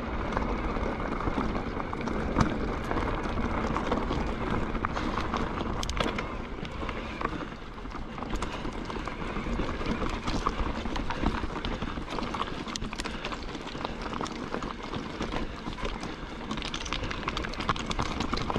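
Mountain bike rolling fast down a loose gravel trail: a steady crunch and rumble from the tyres, with frequent small knocks and rattles from stones and the bike's parts.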